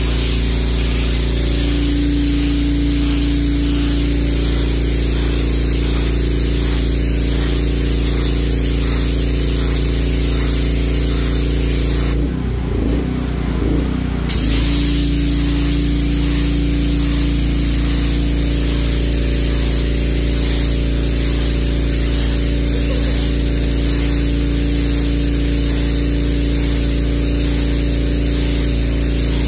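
Pressure washer running: the water jet hisses onto concrete over the steady hum of its pump motor. About halfway through, the spray drops out for about two seconds and the motor's pitch wavers, then both resume.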